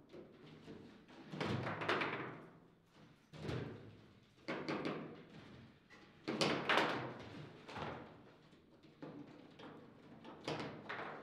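Foosball table in play: the ball struck by the plastic figures and the rods knocking against the table, in bursts of sharp knocks with quieter gaps between. The loudest burst comes a little past the middle.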